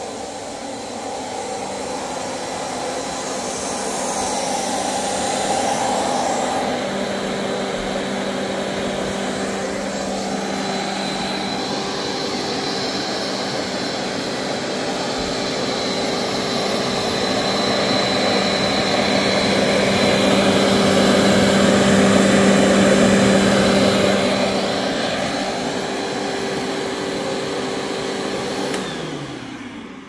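Simplicity upright vacuum cleaner running on a rug, a steady motor hum with a high whine that grows louder and softer as it is worked. Near the end it is switched off and the motor winds down, falling in pitch.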